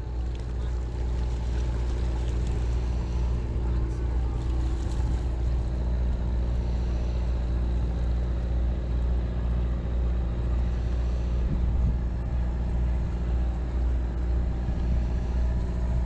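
Steady low engine drone with a constant hum, unchanging throughout.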